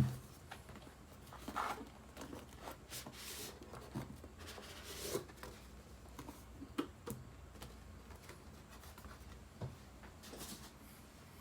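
Quiet handling noises: scattered rustles, soft taps and a few small knocks, with a louder knock right at the start.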